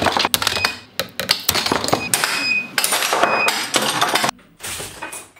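3D-printed PLA hooks snapping under tension, a rapid series of sharp cracks, each followed by the steel S-hooks and carabiner clanking and broken plastic pieces clattering, some with a short metallic ring.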